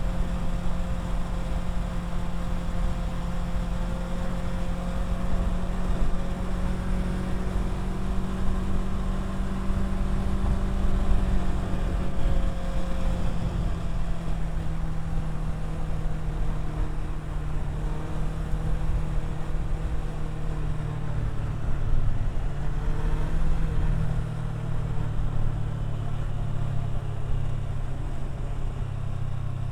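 Kawasaki Versys 650's parallel-twin engine running under way on a ride, with rumbling wind on the microphone. The engine note holds steady, then falls lower over the last third.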